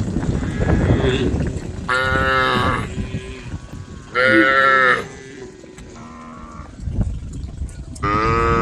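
Cattle mooing: four long, drawn-out calls a second or two apart, one fainter than the rest, the last starting near the end. In the first second or so there is a low rumbling noise.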